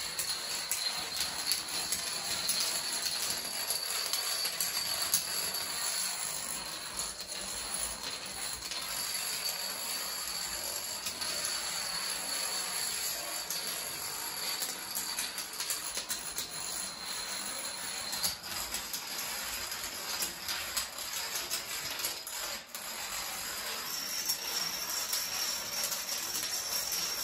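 Plastic dominoes toppling in a long chain reaction: a continuous, rapid clatter of small clicks as piece after piece knocks over the next.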